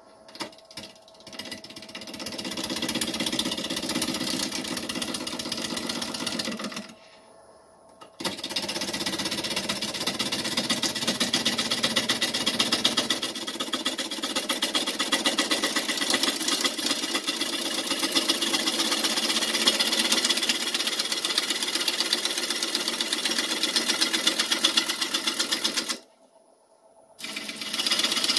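Turning tool cutting into a fruitwood bowl blank spinning on a wood lathe, a fast, even rattling cut. It stops briefly twice, about seven seconds in and near the end, as the tool comes off the wood.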